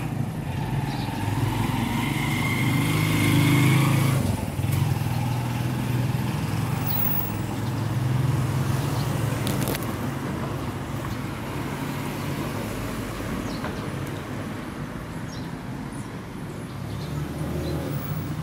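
A motor vehicle's engine running close by, with a faint whine, loudest about two to four seconds in, then settling to a steady lower hum.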